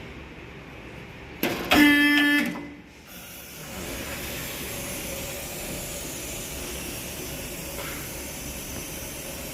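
Vehicle lift being lowered: a short loud pitched tone about a second and a half in, then a steady hiss.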